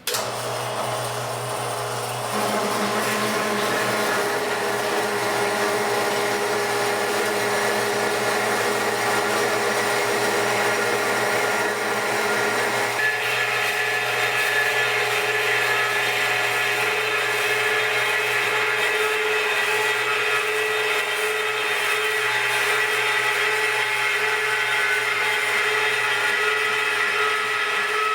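Band saw (22F model) starting up and running steadily while it cuts a 4-inch square steel pipe: a continuous motor hum with a blade whine. About thirteen seconds in the sound turns higher and brighter.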